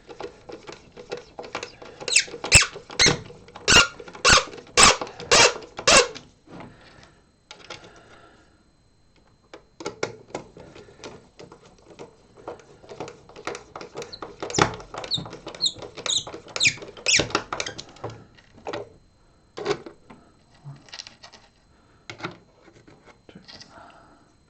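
Hand screwdriver driving screws into a plastic radio case, squeaking and clicking with each turn, about two strokes a second, in two bouts with a short pause between.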